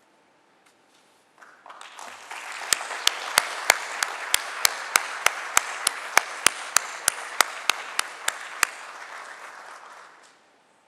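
Audience applauding: the applause swells in about a second and a half in, holds, and dies away near the end. Through the middle a string of about nineteen sharp, evenly spaced cracks, about three a second, stands out as the loudest sound.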